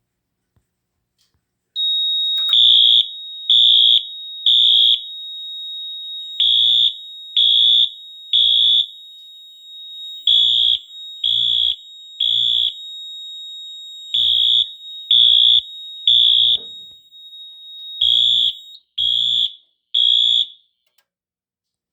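Wheelock MT-24-WM multi-tone horn strobe sounding a high electronic alarm tone in the temporal-3 evacuation pattern: three pulses about a second apart, then a pause, repeated five times, over a fainter steady tone of the same pitch. It starts about two seconds in, when the pull station is pulled and the fire alarm panel goes into alarm, and stops shortly before the end.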